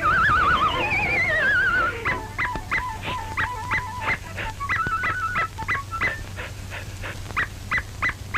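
Early cartoon soundtrack music and effects: two falling, wavering glides like a whimper in the first two seconds, then a run of short staccato notes over a held tone.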